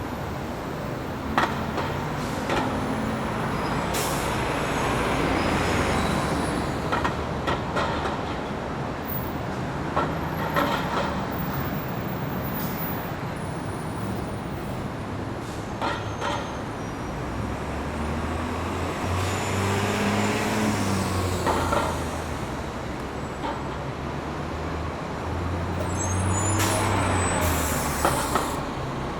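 Bus station ambience: heavy bus engines running in a steady low hum that swells as buses move, with several air-brake hisses, the longest near the end, and a few sharp clanks.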